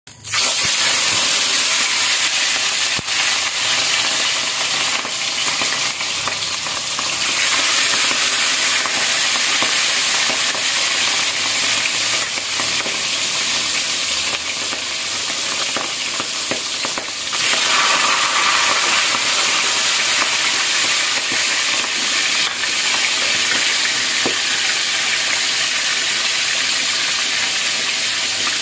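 Sun-dried split fish (daing) sizzling steadily in hot oil in a steel wok, with scattered sharp pops, while a spatula stirs and turns the fish in the pan.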